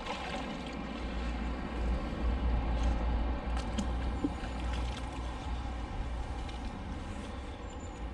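Unsteady low rumble with an even hiss of outdoor background noise, and a few faint clicks near the middle.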